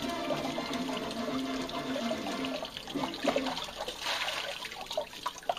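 Water splashing and trickling over fish being cleaned by hand on a concrete washboard sink, with a gush of water poured from a plastic bottle about four seconds in. A few wet knocks of the fish being handled come around three seconds and near the end.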